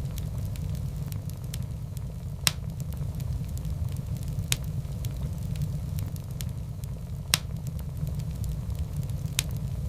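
Wood fire burning in a fireplace: a steady low rumble with scattered small crackles and four sharp pops spread through the stretch.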